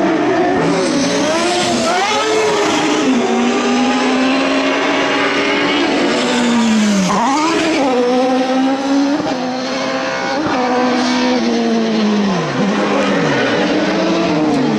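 Autocross buggies with 1600 cc engines racing on a dirt track, engines held at high revs and dipping sharply in pitch several times before climbing again.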